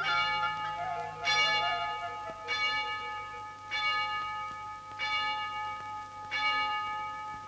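Tower clock bell striking the hour: six slow, evenly spaced strokes about a second and a quarter apart, each ringing on into the next.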